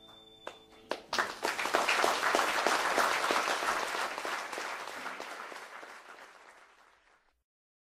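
The last held note of a violin and guitar dies away, then an audience applauds. The applause swells quickly about a second in and fades out gradually, ending shortly before the end.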